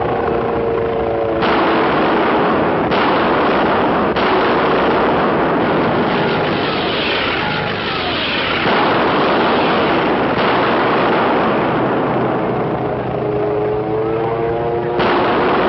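Warplane engines in a diving attack run: a loud, dense rush of engine noise with engine pitch sliding down in the middle and rising again near the end. The sound changes abruptly several times at film cuts.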